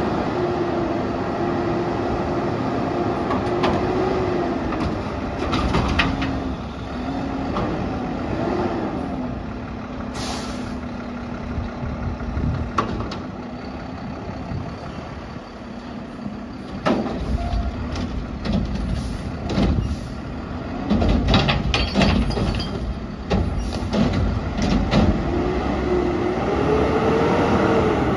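Mack LR garbage truck with a McNeilus Contender front-loader body running and driving along the street, its engine a steady drone, with a short hiss about ten seconds in. In the second half come a run of loud metal clanks and bangs, and near the end the engine note rises and falls as the truck pulls closer.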